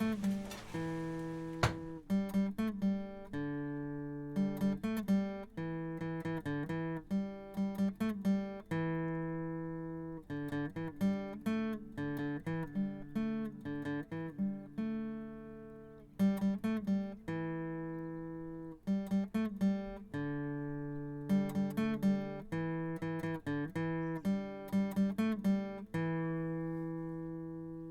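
Acoustic guitar music: unaccompanied plucked notes and chords in short phrases, each note ringing and fading.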